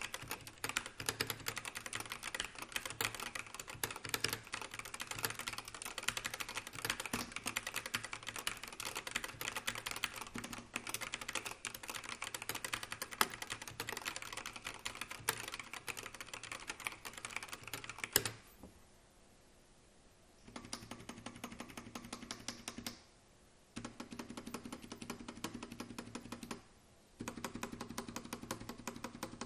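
Typing sound test on a Royal Kludge RK920 mechanical keyboard fitted with sea coral keycaps. A long run of fast, continuous key clatter lasts about eighteen seconds. After a brief pause there are three shorter bursts of typing with short gaps between them.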